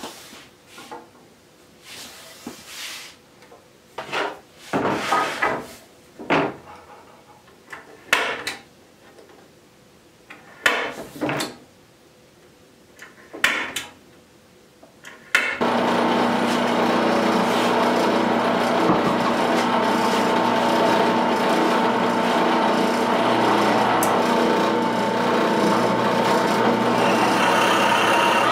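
Wooden wheelbarrow handles being worked: a few separate scraping or rubbing strokes on the wood. About halfway through, a woodworking power tool starts suddenly and runs steadily.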